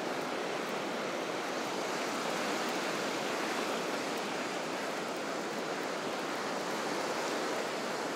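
Ocean surf washing up onto the beach at the water's edge, a steady rush of noise.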